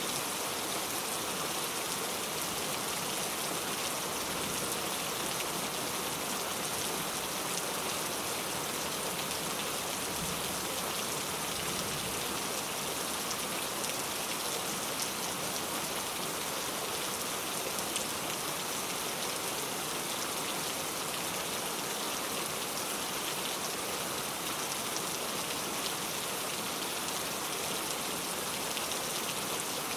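Heavy rain falling steadily, a dense even patter of drops on surfaces with no pauses.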